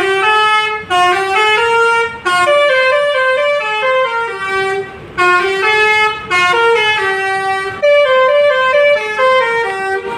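Basuri V3 telolet bus horn playing a tune of quick stepped notes, several horn tones sounding together, in phrases broken by short pauses about 1, 2, 5 and 8 seconds in.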